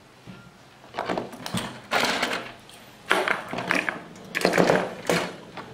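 Handling noise from a metal amplifier case and chassis being lifted and moved on a workbench: a series of clattering knocks and scrapes, each lasting about half a second, starting about a second in.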